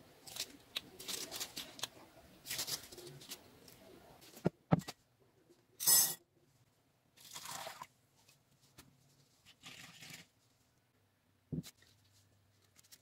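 Latex-gloved hands working a soft steamed bun, a run of small crackles and rustles. Then a sharp knock, and dry red kidney beans poured from a cup into a ceramic bowl, a loud clattering rush about six seconds in. A few softer rustling bursts and another knock follow.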